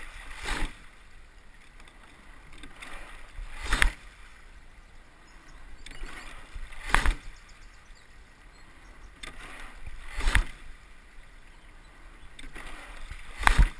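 Rowing pair under way at a steady, easy stroke rate: a sharp knock with a rush of water at each stroke, about one every three seconds, over the steady hiss of the hull through the water.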